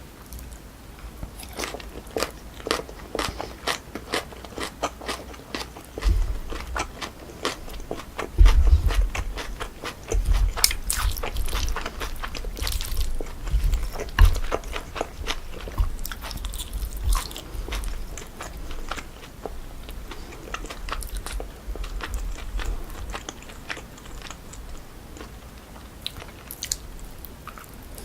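Close-miked chewing and crunching of naengchae jokbal, cold sliced pork trotters with crisp jellyfish salad. There are many quick crackly bites, with heavier, deeper chewing through the middle stretch.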